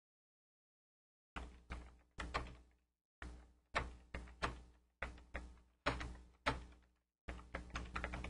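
Typing on a computer keyboard: irregular keystroke clicks, about three or four a second in small bursts, starting about a second and a half in after silence.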